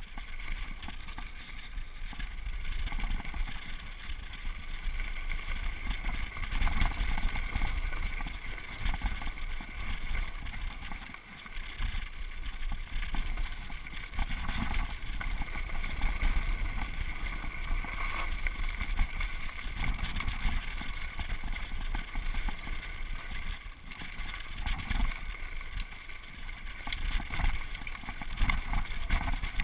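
Wind buffeting the microphone of a mountain bike's on-board camera, with tyres rolling over a rough dirt trail and the bike rattling and knocking over bumps during a fast downhill run.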